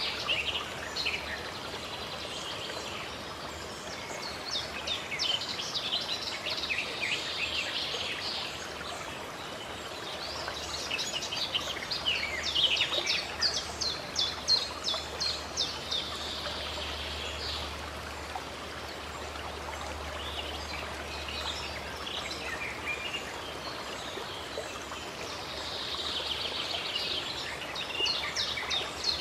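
Songbirds singing in bouts of rapid trilling notes lasting several seconds, with pauses between, over the steady rush of running water.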